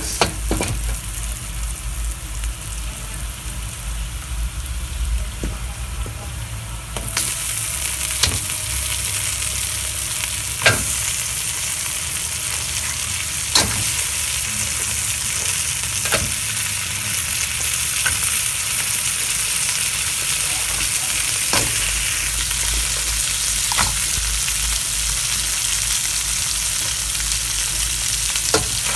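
Oil sizzling in a stainless steel wok with browned garlic and ginger. About seven seconds in the sizzle grows louder as raw blue crabs go into the hot oil, with a sharp knock every few seconds.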